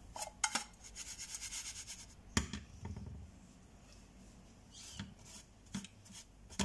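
Frying pan being shifted and swirled on a glass-top hob, with quick repeated scraping, then set down with a knock about two and a half seconds in. Near the end, a few light taps as a spatula prods the pancake in the pan.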